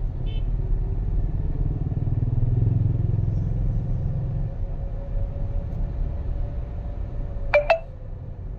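Vehicle on a road test of its automatic transmission's shifting: engine and road rumble builds for the first few seconds, then eases off about four and a half seconds in, with a faint steady whine underneath. Two sharp clicks near the end.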